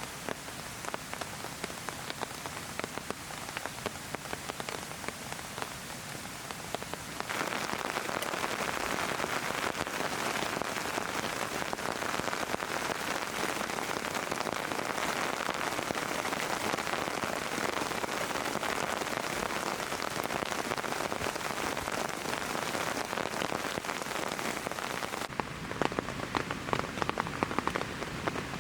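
Heavy rain falling, a dense hiss full of individual drop hits. It gets louder about seven seconds in, and near the end the drop hits come through sharper and more separate.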